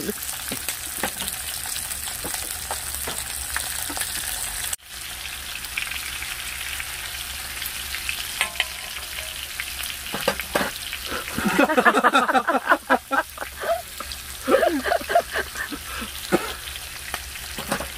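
Pork belly strips frying on a hot griddle pan: a steady hiss of sizzling fat with scattered crackles and pops.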